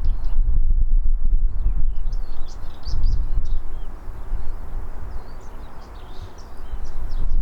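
Small birds chirping in short, quick notes over a loud, gusty low rumble of wind buffeting the microphone. The rumble eases for a couple of seconds around the middle and then comes back.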